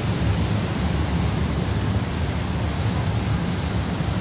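Steady rushing noise of wind on the microphone and the churning propeller wake behind the stern of a river cruise ship, with a heavy, uneven low rumble.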